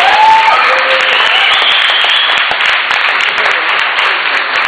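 Spectators cheering and applauding loudly, with shouts over dense clapping, in reaction to a takedown on the mat. The noise is loudest at the start and slowly dies down.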